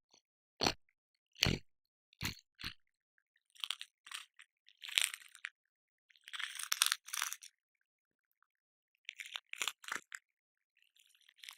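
Cockroach sounds: a few sharp clicks, then crackling, rustling bursts of about a second each at irregular intervals, with silent gaps between.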